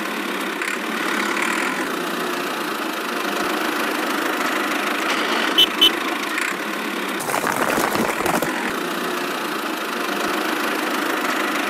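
Steady engine running sound of a miniature toy tractor, with two sharp clicks about six seconds in and a rougher rattle shortly after.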